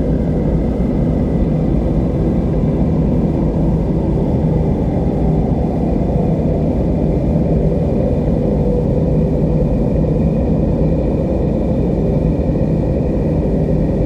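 Steady low rumble of ocean surf, even in level throughout, with a few faint sustained tones above it.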